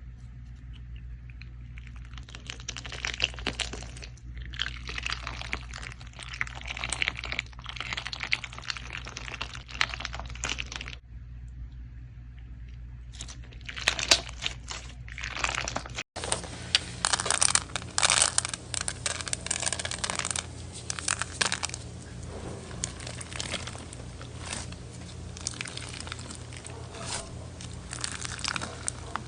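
Crunchy bead-filled slime being squeezed and pressed by hand, giving dense, rapid crackling and popping in long runs with short pauses. About halfway through the sound cuts abruptly to another crunchy slime, which crackles almost continuously.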